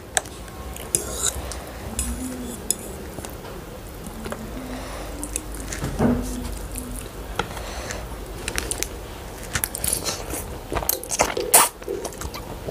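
A fork clinks and scrapes on plates as instant noodles are lifted and eaten, with chewing close to the microphone. Sharp clicks come now and then, and come thick and loud in the last few seconds.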